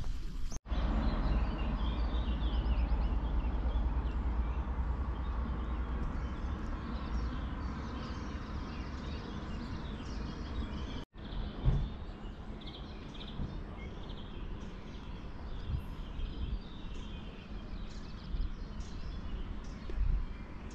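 Outdoor ambience: small birds chirping over a steady low rumble of background noise, which drops out abruptly twice.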